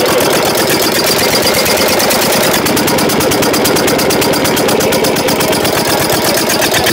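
Field Marshal 12 HP single-cylinder Lister-type diesel engine with twin flywheels running steadily just after its first start, with an even, rapid knocking beat.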